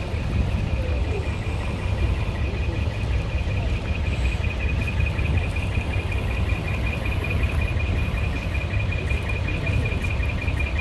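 Large truck engines idling in a steady low rumble, with a continuous high, finely pulsing buzz over it.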